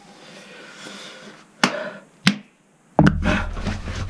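Two sharp knocks, one about a second and a half in and one about two seconds in. From about three seconds in come clothing rustle and a low handling rumble as the person shifts and stands up.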